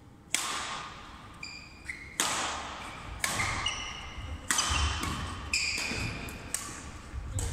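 Sharp badminton racket strikes on a shuttlecock, about one a second, ringing out in a large sports hall. Short high squeaks of sports shoes on the wooden court floor come between them.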